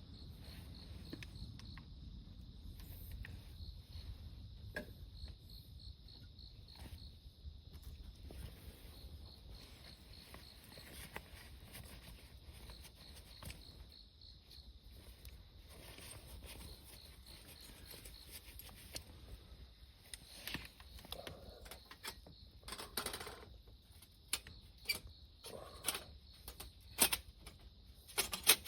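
Crickets chirping in a steady high-pitched pulsing trill, with scattered sharp crackles and clicks that become more frequent and louder in the last several seconds.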